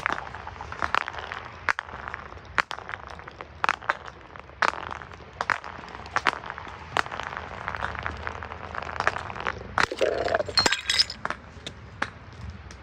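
Glass bottles being crushed and broken: a run of irregular sharp cracks and clinks, with a denser burst of shattering about ten seconds in.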